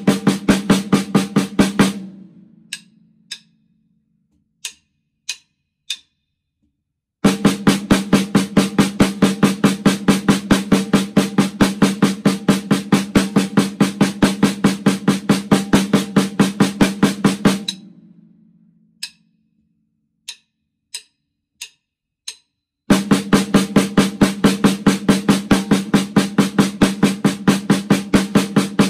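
Snare drum played in fast, even single strokes in long runs. The playing stops twice for about five seconds: each time the drum rings out, then a handful of sharp clicks count back in before the strokes resume.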